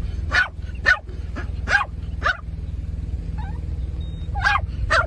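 A dog barking repeatedly in short barks, with a gap of about two seconds before a few more near the end, over a steady low rumble.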